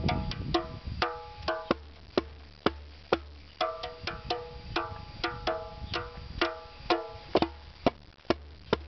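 Djembe beaten with a stuffed toy monkey's paws in a quick, uneven rhythm of about three to four strokes a second, many strokes ringing briefly with a pitched tone.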